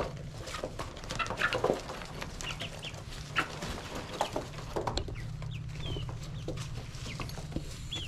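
Young Australorp and Rhode Island Red chickens peeping and clucking in short, high, scattered chirps, several gliding downward, over a steady low hum.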